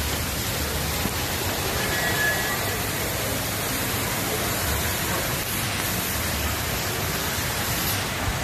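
Steady rushing hiss of falling water from a pool's mushroom fountain and play-structure sprays, splashing onto the water.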